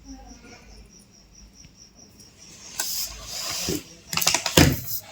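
Faint high chirping, repeating a few times a second, like a cricket. Then, from a little before halfway, loud irregular rustling and clattering close to the microphone, the handling of tools and parts at a workbench.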